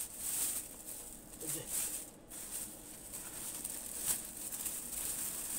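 Rustling and light scraping of plates being handled and stacked, with a light knock about four seconds in.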